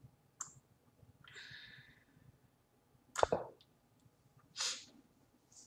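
Mostly quiet room with a few small sounds: a faint click near the start, two short soft breaths or sniffs, and one sharp knock a little over three seconds in.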